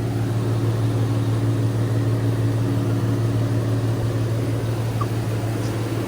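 Infiniti G37's 3.7-litre V6 idling steadily through a freshly installed ISR single-exit exhaust, a low, even hum.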